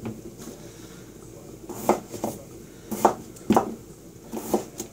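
Kitchen clatter: a handful of sharp knocks and clinks of dishes and utensils. They start about two seconds in and come irregularly, some in quick pairs.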